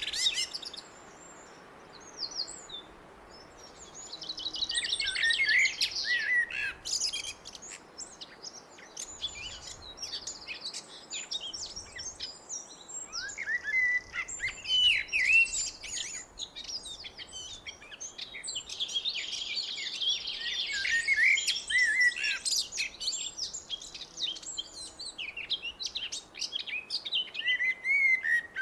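Blackbird singing: phrases of whistled and twittering notes that come every few seconds with short pauses between them.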